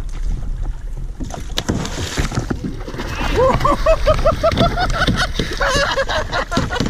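Water splashing and sloshing against the side of a kayak as a hooked king mackerel thrashes at the surface while it is landed. From about three seconds in comes a run of short pitched chirps, several a second, each rising and falling.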